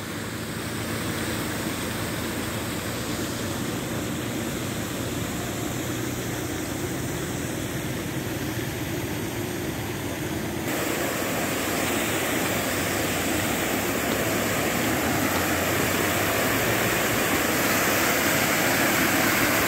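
Water gushing from a burst drinking-water main: a tall jet shooting up and crashing back down onto earth and gravel, making a steady rushing noise. It gets suddenly louder about ten seconds in and keeps getting louder toward the end.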